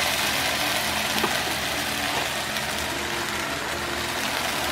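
Consomé-dipped corn tortilla sizzling steadily in a hot oiled frying pan.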